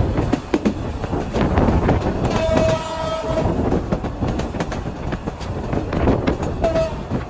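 Passenger train running along the track, its wheels clicking over the rail joints. The locomotive horn sounds once for about a second around the middle and gives a short toot near the end.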